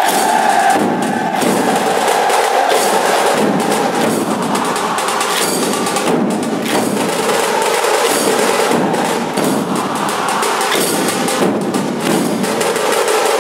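Dhol-tasha troupe drumming: large barrel dhol drums and tasha snare drums playing a dense, loud, unbroken rhythm, with hand cymbals clashing on top.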